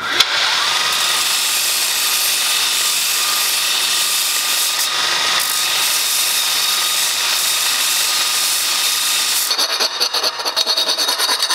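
Bench-mounted belt linisher grinding the notched end of a seamless steel tube, bevelling it back to the full wall thickness: a steady, loud grinding hiss with a faint steady whine. About nine and a half seconds in it stops, and a quick series of short scraping strokes follows as the tube is worked by hand.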